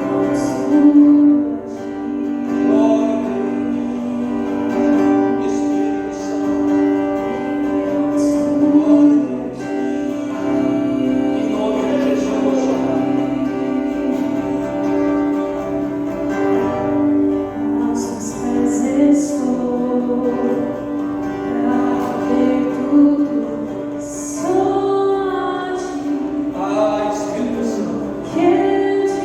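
Worship music with singing over held, steady instrumental chords.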